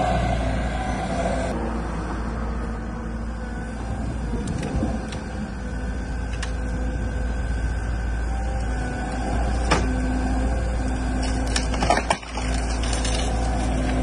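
Cat tracked excavator's diesel engine running steadily with its hydraulics working a tree grab as it pulls out a tree. Sharp cracks about ten seconds in and a louder cluster about twelve seconds in.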